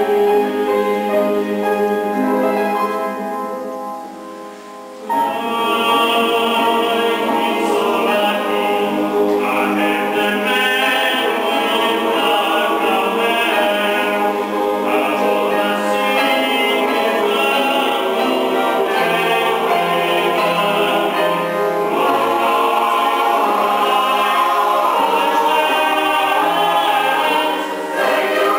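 Choir singing in parts. Around four seconds in the singing dies down to a soft held chord, then the full choir comes back in about a second later and sings on steadily.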